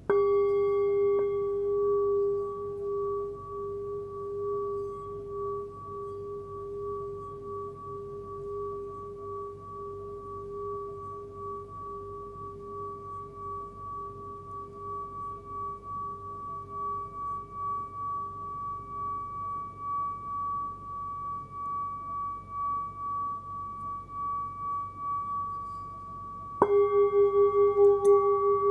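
A 12.4 cm hand-forged singing bowl with a fundamental of about 406 Hz (G#) is struck and rings on in a long steady tone with a higher overtone, the tone pulsing slowly as the mallet works the rim. It is struck again, louder, near the end, with a quicker pulse.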